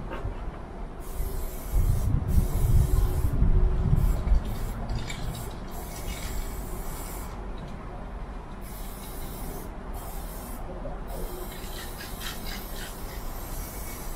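Aerosol spray-paint can hissing in repeated bursts of one to two seconds as paint is sprayed onto a freight wagon. A low rumble, loudest about two to four seconds in, runs underneath.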